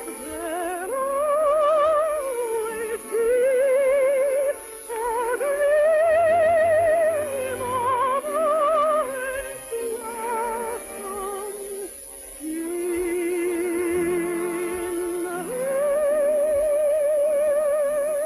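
A soprano singing long, held, high notes with a wide vibrato over orchestral accompaniment, heard on an old radio transcription recording.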